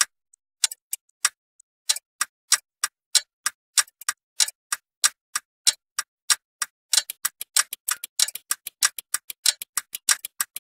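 Clock ticking: a few scattered ticks at first, then a steady run of about three ticks a second that quickens to about five a second in the second half.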